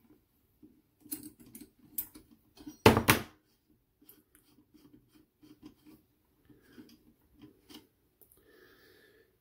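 Small metallic clicks and light rattling as a steel A1-style flash hider is unscrewed by hand off a rifle barrel's threads after being loosened with its wrench, with one louder clack about three seconds in.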